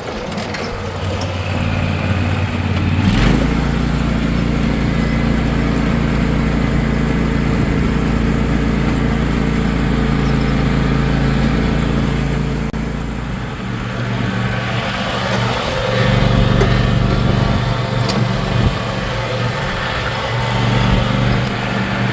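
Riding lawn mower engine running as it tows a small barrel-car farm train. The engine note shifts about three seconds in and again about two-thirds of the way through, as the engine speed changes.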